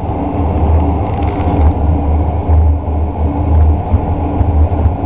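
Express train running through the Seikan Tunnel, heard from inside the carriage: a steady, loud, low rumble of wheels on rail.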